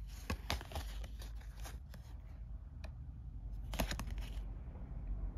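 Thick playing cards being fanned and slid apart in the hands: a scatter of small clicks and snaps as the card edges rub and flick, with a denser cluster about four seconds in.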